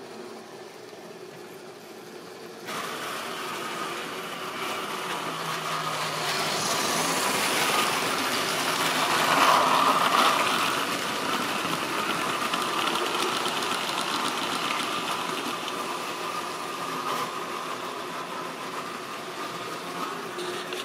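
Model train running on the layout: the locomotive's electric motor hums and the wagon wheels rumble along the sectional track. It starts suddenly about three seconds in, grows louder to a peak as the train of tank wagons passes close by, then runs on steadily.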